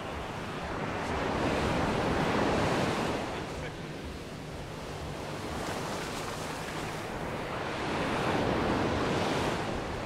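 Small waves breaking and washing up a sand beach, the surf swelling twice: about a second in and again near the end.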